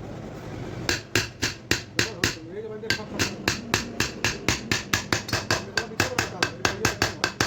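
Rapid, even hammer taps on the metal parts of a ceiling fan, about four strikes a second with a brief pause early on, as the fan is put back together after its bearings were replaced.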